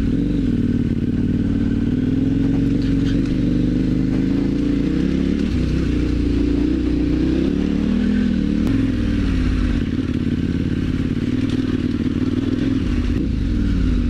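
Adventure motorcycle engine running while the bike is ridden up a gravel dirt track, its revs rising and falling with the throttle.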